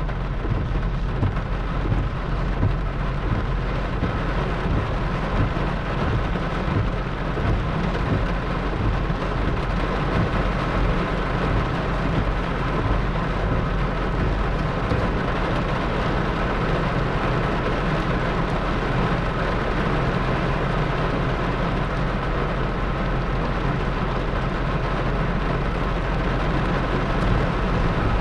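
Torrential rain pouring steadily in a thunderstorm, with a deep rumble underneath.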